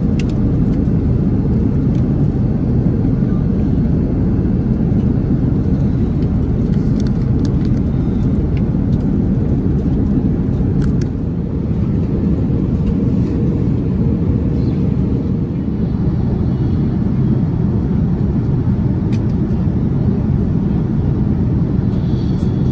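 Steady cabin noise of a Boeing 787-10 airliner in cruise: a low rumble of engines and airflow heard inside the cabin, with a few faint clicks.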